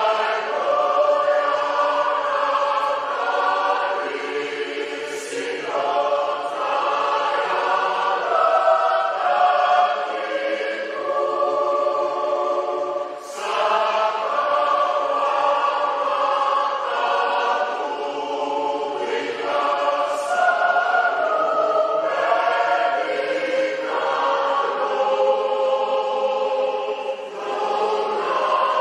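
Church choir singing a Fijian-language Christmas hymn, several voices in harmony holding long sustained phrases, with brief breaks for breath between phrases about every seven seconds.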